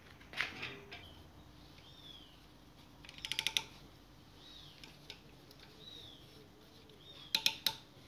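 Sharp metallic clicking from a small hand tool worked on a refrigerator's copper tubing: a single click about half a second in, a quick run of about eight clicks a few seconds in, and three or four more near the end.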